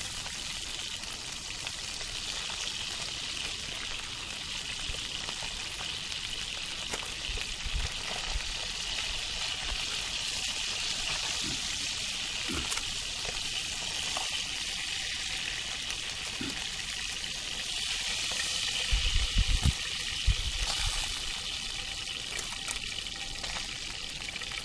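Fish frying over an open fire, a steady sizzle. A few dull thumps come near the end.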